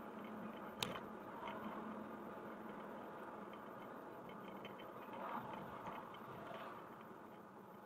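Faint steady road noise of a car driving, with one sharp click about a second in and light ticking after it.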